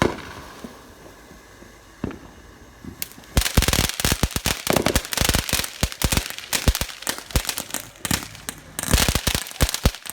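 Fireworks going off: a sharp bang at the start and a single pop about two seconds in, then a fast, dense string of loud cracks and bangs from about three and a half seconds on, pausing briefly before more cracks near the end.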